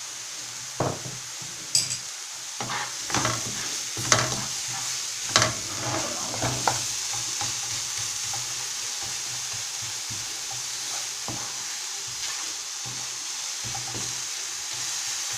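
Chopped onion and tomato sizzling in a nonstick frying pan while a wooden spoon stirs and scrapes through them. A run of sharp knocks and scrapes from the spoon comes in the first half, then the sizzle goes on with gentler stirring.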